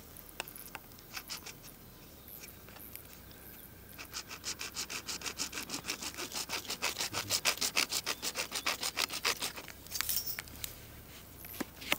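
Rapid, even back-and-forth scraping strokes of a hand tool working a pipe during pipe repair, starting about four seconds in after a few light clicks and stopping a little before ten seconds, with one short louder scrape after.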